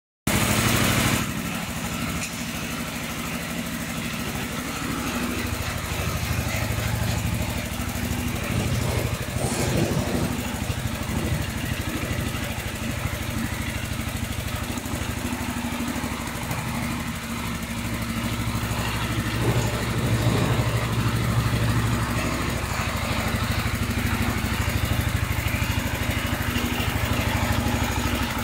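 Mini four-wheel-drive tractor's engine running steadily as the tractor is driven slowly.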